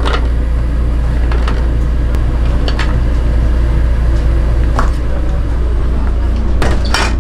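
Steady low rumble under a few scattered clicks and light clatters as sliced radish and soybean sprouts are dropped into a metal pot; the loudest clatter comes near the end.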